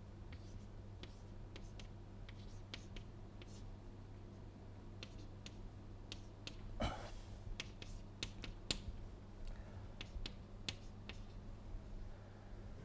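Chalk writing on a blackboard: a run of short, irregular taps and scrapes as the stick strokes the board, with one brief louder sound about halfway, over a steady low hum.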